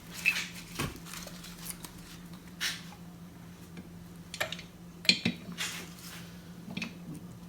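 Scattered metallic clinks and knocks of a motorcycle cylinder barrel and tools being handled as the barrel is lowered over the pistons, over a steady low hum.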